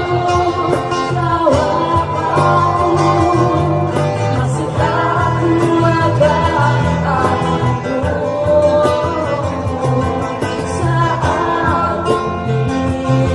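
Woman singing into a microphone with acoustic guitars strumming along, a live acoustic band performance.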